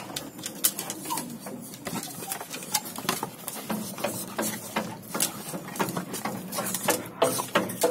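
Puppies' paws and claws clattering on a raised floor of bamboo poles as they move about: quick, uneven clicks and knocks with the bamboo rattling.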